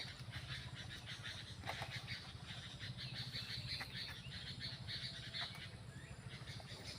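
Frog chorus: a steady, rapid chirring, with a low hum underneath.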